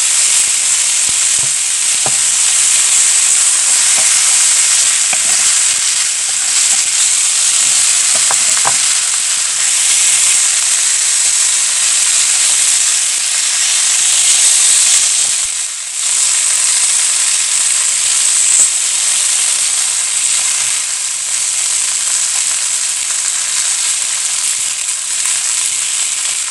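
Coarse-salted Pacific saury frying in a nonstick pan, a steady sizzle that dips briefly past the middle. Now and then there are light clicks as chopsticks and a wooden spatula turn the fish.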